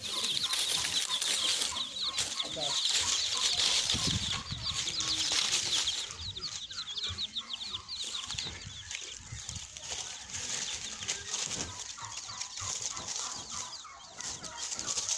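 Deshi (Bangladeshi local) chicks peeping without a break: quick, high, falling cheeps, many a second, busiest in the first six seconds and thinner after. A hen clucks low now and then under them.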